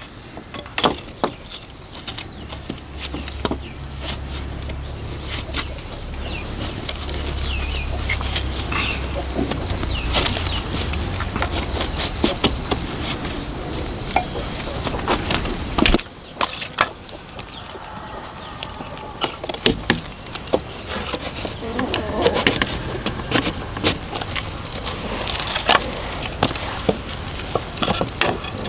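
Split bamboo strips clattering and tapping against each other as they are picked up and laid out on the ground, in irregular knocks. An insect buzzes close by for several seconds near the start.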